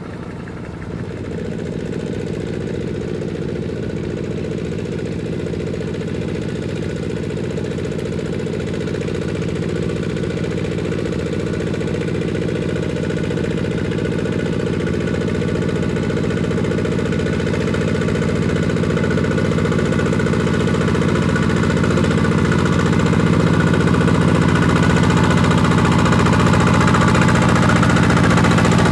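Single-cylinder diesel engine of a two-wheel walking tractor running under load while ploughing, with a fast, steady knock. It grows gradually louder as the tractor comes closer.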